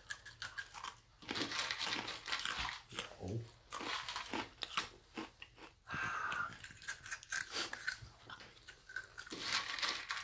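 A person crunching and chewing dry Sour Patch Kids cereal, eaten by the handful without milk: many quick, crisp crackles.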